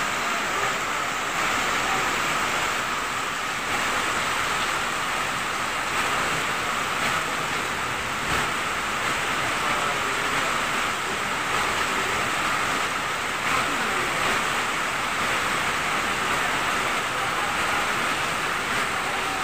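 Very heavy rain pouring down on a flooded yard and roof, a steady unbroken hiss.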